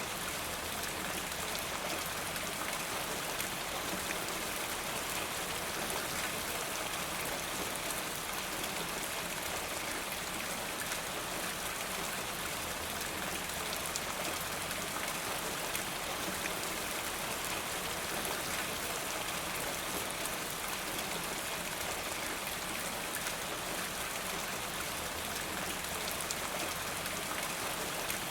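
Steady rain falling, dense drops pattering on hard surfaces with water running off a rain gutter.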